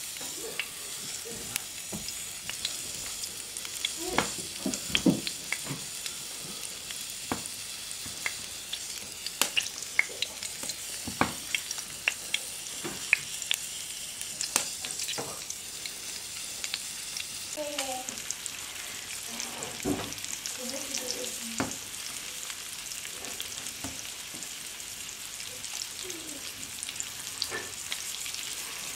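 Fresh anchovies pan-frying in oil, a steady high sizzle with scattered pops and clicks as more fish are laid into the hot pan.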